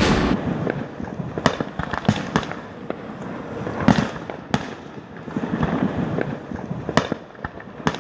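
Aerial fireworks shells bursting in an irregular string of sharp bangs, some close together and some a second or two apart.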